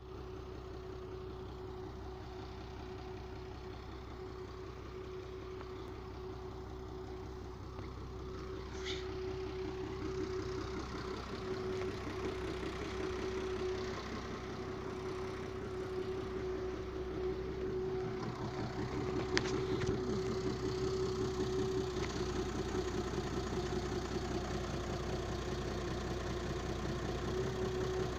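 Audi car engine idling steadily, with a constant tone over the running and slightly louder from about eight seconds in. Two short clicks, about nine and about nineteen seconds in.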